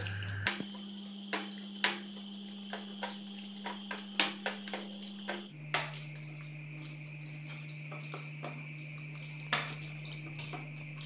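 Wet squelching and smacking of a hand kneading raw chicken liver pieces with spice powders and ginger-garlic paste on a plate, in short irregular squishes.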